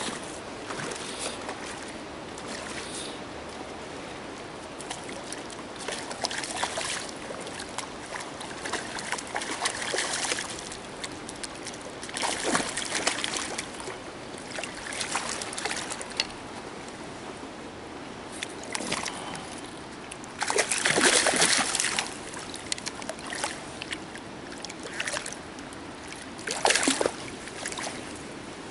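A hooked trout thrashing and splashing at the pond's surface as it is played and landed in a landing net: irregular splashes, the biggest about two-thirds of the way through and another short one near the end.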